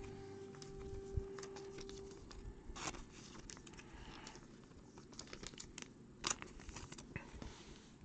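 Trading cards being handled and stacked on a tabletop: quiet, scattered rustling with short clicks and taps, the sharpest about three and six seconds in. A faint steady tone runs for the first two seconds.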